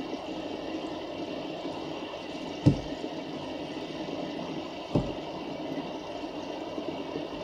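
Water bubbling and gurgling steadily in an aquaponic tub, with two dull thumps, one a little under three seconds in and one about five seconds in.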